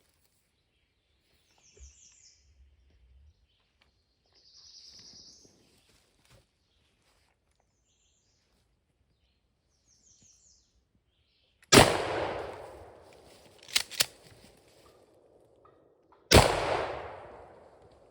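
A few faint bird chirps in quiet woods, then a shotgun blast about twelve seconds in that rings out and fades slowly. Two sharp clicks follow as the action is worked, then a second shot about four seconds after the first: a missed shot and the follow-up at a turkey.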